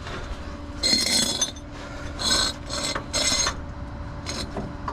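A series of short rasping scrapes, about five in all, with the loudest near one second in and around three seconds in, over a steady low hum.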